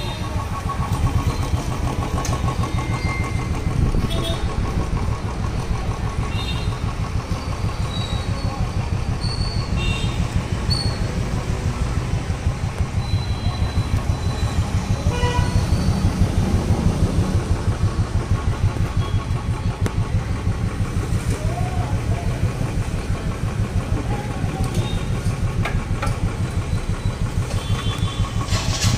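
Royal Enfield Bullet Electra 350's single-cylinder engine idling through an aftermarket exhaust with a steady stream of firing pulses, swelling a few times as it is revved lightly.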